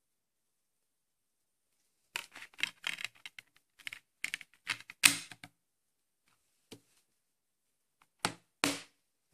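Plastic clicking and clattering as a DVD disc is set into its plastic case and pressed onto the centre hub, with the loudest snap about five seconds in. Two louder plastic clacks from the case follow near the end.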